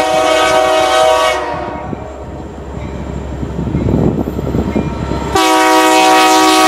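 BNSF SD70MAC diesel-electric locomotive's air horn sounding a chord of several tones, cutting off about a second and a half in and sounding again near the end. In between, the locomotive's engine and wheels rumble louder as it draws close.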